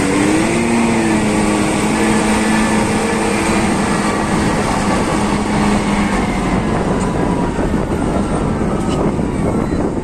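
Heavy diesel engines of a loaded Caterpillar 777 rigid haul truck driving past close, over a bulldozer working behind it: a loud, continuous rumble with a steady engine note that fades out about two-thirds of the way through.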